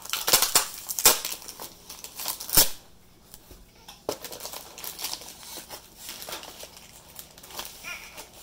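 Tightly taped package being torn and crinkled open by hand: dense crackling and clicking, with a loud sharp knock about two and a half seconds in, then quieter scattered handling clicks.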